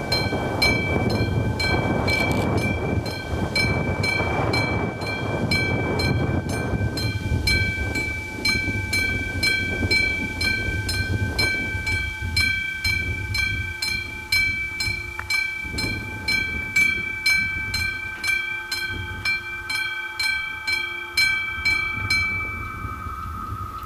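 Level-crossing warning bell, a classic struck bell, ringing at about two strokes a second while the barriers come down, and stopping once they are fully lowered. A loud low rushing rumble runs under it for the first ten seconds or so and fades away.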